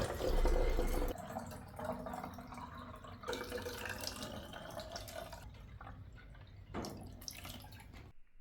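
Water running from a tap into empty cans to fill them, with a faint pitch that rises as a can fills; the sound stops abruptly near the end.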